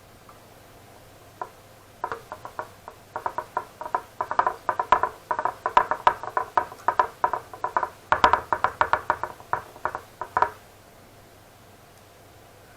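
A fast, irregular run of sharp clicks and taps from hard objects knocking together, starting about two seconds in and stopping abruptly near the end.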